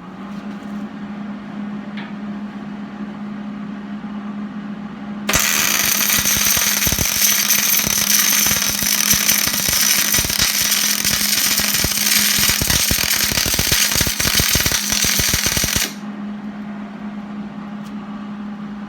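Steady hum from the welding machine, then about five seconds in an electric welding arc strikes and crackles loudly for about ten seconds before cutting off abruptly: a weld bead being laid to fix a linear rail to the steel frame.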